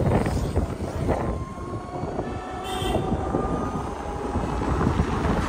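Wind rushing over the microphone and road noise while riding an electric scooter, with a brief pitched tone sounding in the middle.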